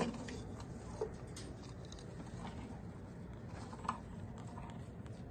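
Faint scattered taps and clicks, with two small sharp knocks, one about a second in and one near four seconds in.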